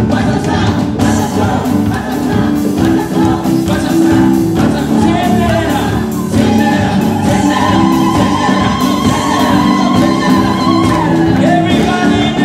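Live worship music: a congregation singing an upbeat praise song along with a band, with a long held high note in the second half.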